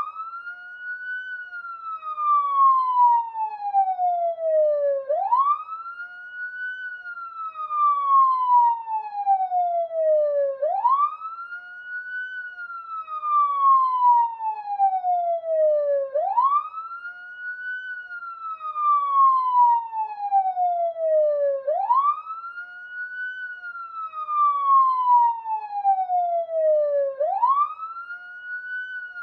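Police siren in a slow wail: each cycle sweeps up quickly, then falls slowly, repeating about every five and a half seconds.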